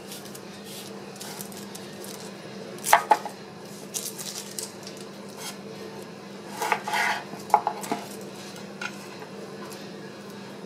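Chef's knife knocking on a bamboo cutting board as a brown onion is sliced: a few sharp knocks, the loudest about three seconds in and a cluster around seven to eight seconds, over a low steady hum.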